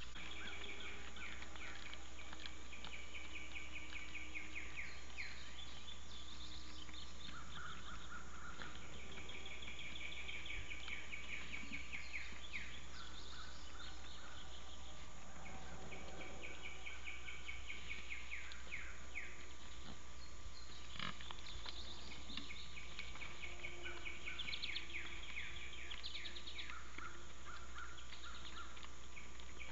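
A chorus of insects chirping in long pulsing trains that repeat every few seconds, over a steady electrical hum. Around the middle there is a brief breathy, noisy sound, and later a single sharp crack.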